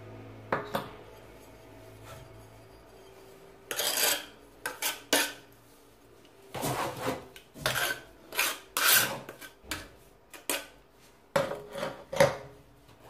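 Tile mortar being scraped and spread across a terracotta tile floor: a string of short rasping scrapes starting about three and a half seconds in, after a quiet start with a single click.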